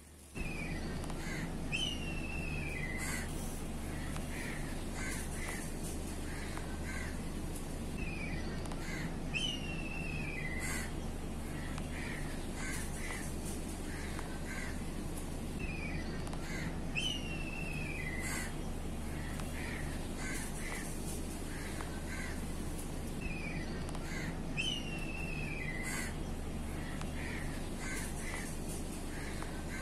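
Bird calls: one falling whistled call followed by a handful of short chirps. The same sequence repeats four times, about every seven and a half seconds, over a steady low hum.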